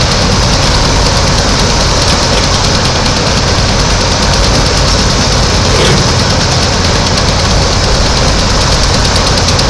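Heavy machinery running steadily: a loud, even engine drone that holds constant throughout.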